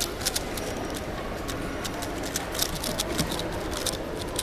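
Scattered light, sharp clicks over a steady background murmur.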